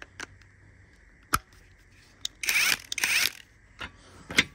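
Handling of a socket and impact wrench on a bolt in a bench vise: a few sharp metal clicks, and two short scraping rattles about halfway through as the socket is worked onto the bolt head.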